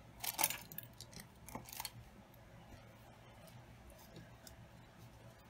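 Hands handling a small grosgrain ribbon bow on a cutting mat: two short rustles, one near the start and another about a second later, then quiet handling.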